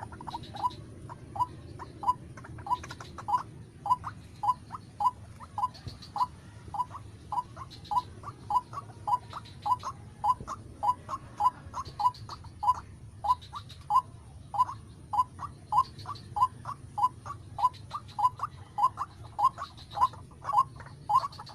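White-breasted waterhen calling: short, sharp notes repeated in a steady rhythm, about two a second, without a break.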